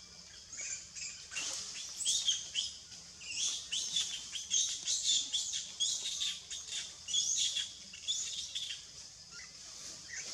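Newborn macaque crying in a rapid run of short, high-pitched squeaks and chirps, the hungry baby calling to its mother for milk.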